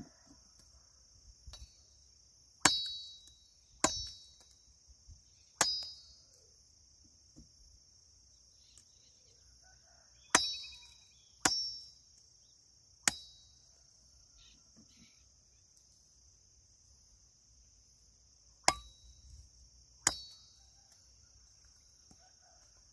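Machete chopping cassava stems: eight sharp strikes in irregular groups, each with a short metallic ring from the blade. A steady high insect buzz runs underneath.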